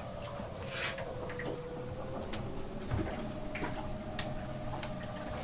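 Scattered light clicks and knocks, about one every half second to second, over a steady low hum and a faint wavering tone.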